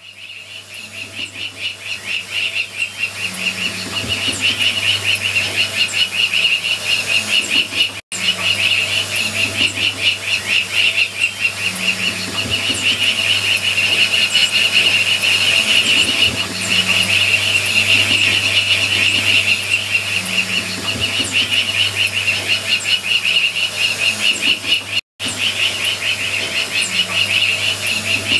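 Animal ambience: a steady chorus of fast, rapidly repeating calls with bird chirps, over a low steady hum. The sound breaks off briefly twice.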